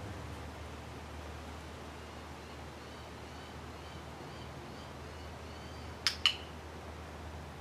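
A handheld training clicker clicks once about six seconds in, a sharp double click as it is pressed and released, marking the horse touching the target. Faint short chirps and a low steady rumble lie underneath.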